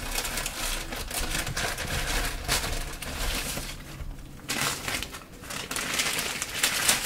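Rustling and crinkling of white protective wrapping as a camera body is pulled out of its box and unwrapped by hand, with a quieter stretch a little past the middle.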